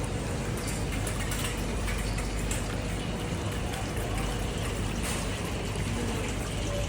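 Steady rushing water of a waterfall, an even unbroken noise.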